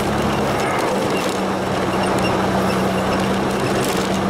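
Pickup truck driving at a steady speed on a gravel road, heard from inside the cab: a constant engine drone under a thick rush of tyre and road noise.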